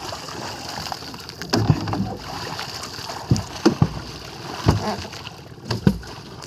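A fisherman pounding the water with a pole from a boat: about six heavy, irregularly spaced thumps and splashes, done to scare sapsap (ponyfish) into a gill net.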